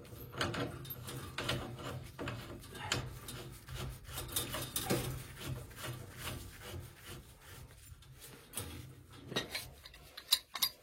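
Gas piping being refitted to a boiler's gas valve with wrenches: irregular metal scraping, rubbing and light clicks as the union is worked back together and tightened.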